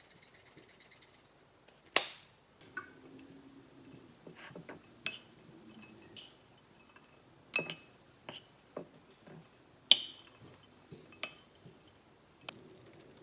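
Utensils clinking against dishes: a string of sharp, separate clinks a second or more apart, the loudest about two seconds in and again near ten seconds.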